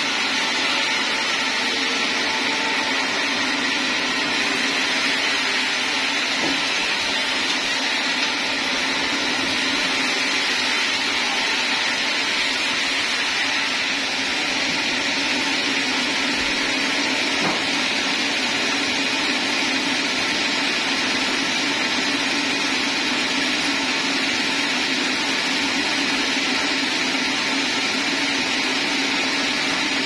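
Large vertical sawmill band saw and its log carriage running steadily, with a constant machine drone throughout.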